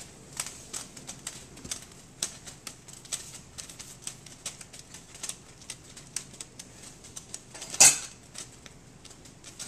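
Covered pot of rice boiling hard, giving irregular sharp clicks and pops over a faint hiss, with one loud click about eight seconds in.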